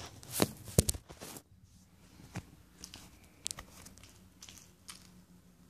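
Kitten playing with a string toy on carpet: a few sharp knocks and rustles, the loudest about a second in, then scattered soft scuffs and clicks as it wrestles and bites the toy.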